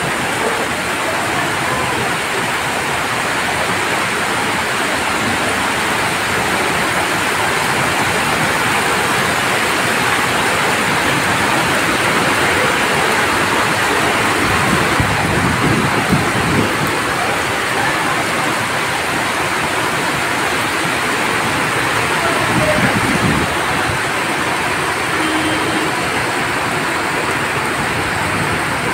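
Heavy rain pouring onto paved ground and roofs: a dense, steady hiss of falling water.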